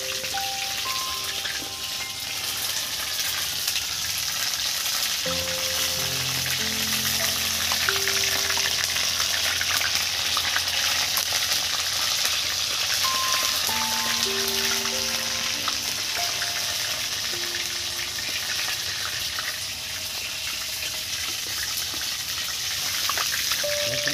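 Batter-coated Bombay duck (lote fish) pieces deep-frying in hot oil in a large kadai, giving a steady, dense crackling sizzle. Soft background music with held notes plays underneath, and a low note joins about five seconds in.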